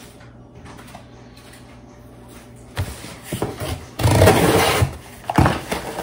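Objects being handled: a low room hum, then a few knocks from about three seconds in, and a loud rustle lasting just over a second about four seconds in.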